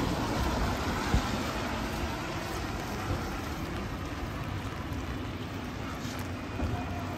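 Steady rushing noise of a wet city street, with traffic and rain, and one sharp knock about a second in.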